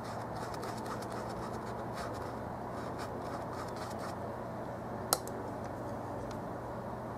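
Bristle brush scrubbing oil paint onto canvas in short scratchy strokes over a steady low hum, with one sharp click about five seconds in.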